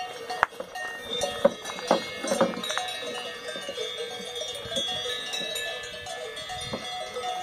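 Cowbells on grazing cattle clanking at irregular intervals. Several bells of different pitches ring on over one another.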